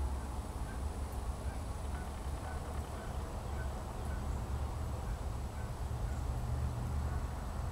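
Outdoor field sound with a steady low rumble, and a faint short call repeated about twice a second from an animal, likely a bird, stopping about six seconds in.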